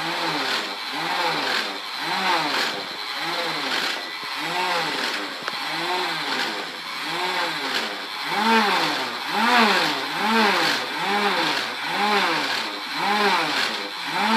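Toy lawnmower making its engine noise, revving up and down again and again in rising-and-falling swells, coming faster in the second half.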